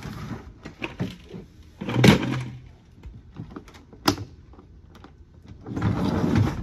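Clear plastic storage bin being pulled out across a pickup truck bed, scraping and sliding. There is a loud knock about two seconds in, a sharp click about four seconds in, and a longer slide near the end.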